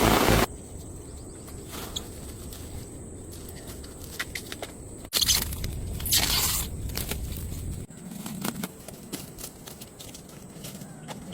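Footsteps crunching and scraping through leaf litter and twigs on a forest floor, with scattered small snaps and clicks and two louder crunches about five and six seconds in.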